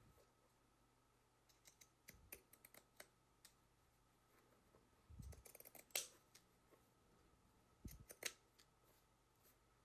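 Pinking shears cutting the raw edges of denim: faint, scattered snips and clicks of the blades in short clusters.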